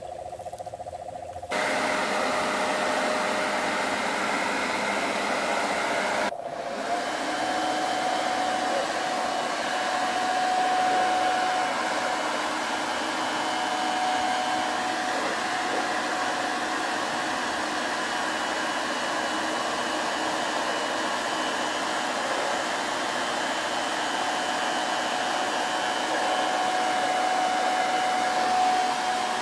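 A blower running steadily with a rushing noise and a high whine, forcing air up a long downspout pipe to blow leaves and debris out of a roof gutter. It starts abruptly about a second and a half in.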